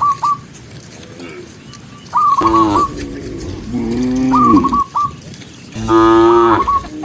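Cattle mooing: three long, loud calls about two seconds apart, each with a wavering high note.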